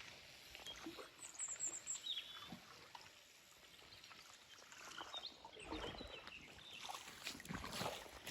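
Small birds chirping a few short high notes, over irregular rustling and knocking of gear being handled.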